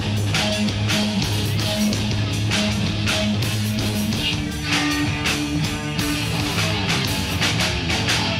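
Live rock band playing electric guitars and drums, a repeating low riff under steady drum hits; the riff moves up to a higher note about four seconds in.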